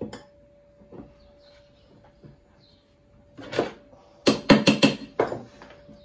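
Metal knocks and clanks of a washing-machine motor's cast end housing being handled and seated back onto the stator: a few light clicks, one knock, then a quick run of about five sharp knocks near the end.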